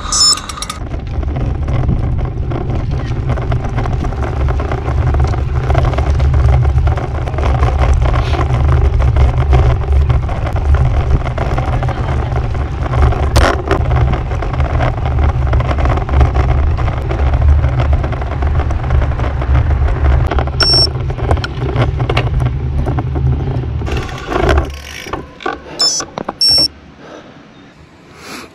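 Wind buffeting an action camera's microphone while riding a road bike: a loud, steady low rumble that drops away about 24 seconds in. A few short high chirps come near the end.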